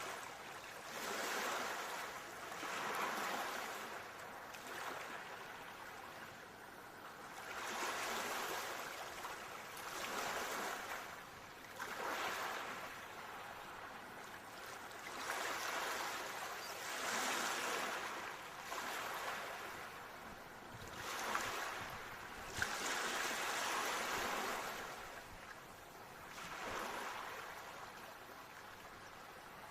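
Ocean waves washing in and drawing back, the surf swelling and fading every two to three seconds.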